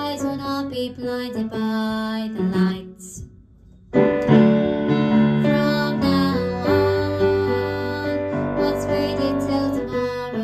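Piano playing a baritone vocal part as a note-learning track. The playing breaks off briefly about three seconds in, then comes back louder.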